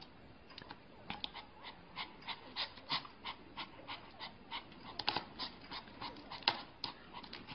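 Small white spitz-type puppy panting in a quick run of short, sharp huffs, about three a second, strongest in the middle stretch.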